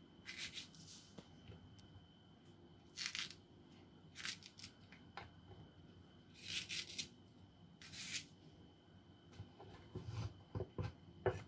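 Kitchen knife slicing through okra pods, several short, faint scraping swishes spaced a second or two apart. Near the end, a quick run of light knocks as the blade chops the bundled pods on a wooden cutting board.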